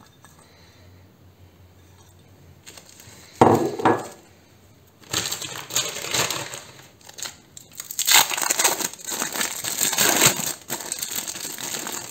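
A short knock about three and a half seconds in, then a plastic packet of cheese slices crinkling and rustling loudly in uneven surges as it is handled and opened.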